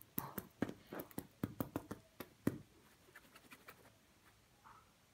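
A kitten's claws scratching and catching on a bedsheet and string toy as it grabs at the string: a quick run of sharp scratches in the first two and a half seconds, then only faint ticks.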